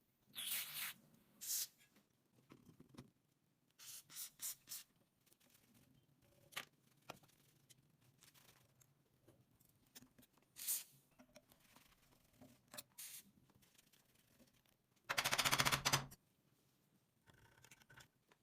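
Intermittent short scrapes and clicks from hand work on rusty metal, with one louder rasping burst lasting about a second near the end.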